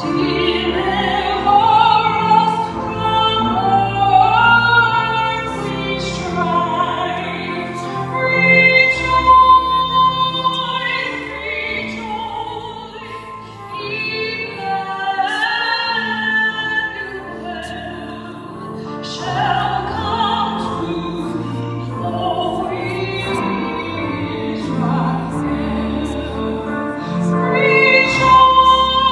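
A woman singing solo through a hand-held microphone, holding long notes with vibrato, over a low instrumental accompaniment.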